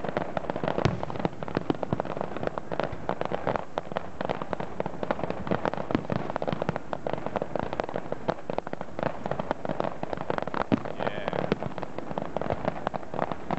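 Fireworks display: aerial shells bursting over ground fountains, a dense, unbroken run of bangs and crackling pops.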